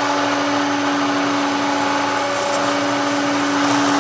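Milling machine spindle driving a large shell mill through a full-depth cut in PEEK plastic. It makes a steady pitched hum under load over a continuous hiss of chips.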